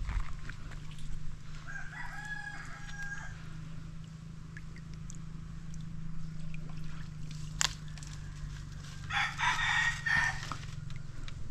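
Roosters crowing twice: a clear, held crow about two seconds in and a harsher one near the end, over a steady low hum. A single sharp click a little past the middle.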